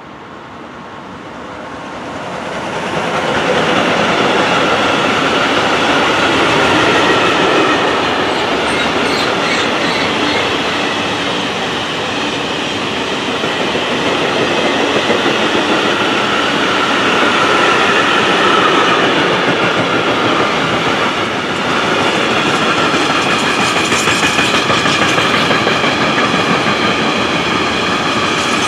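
DB Class 185 electric locomotive and its mixed freight train passing close by: the sound swells over the first three or four seconds as the locomotive arrives, then the wagons' wheels keep up a loud, steady rolling noise on the rails with a thin high ringing over it.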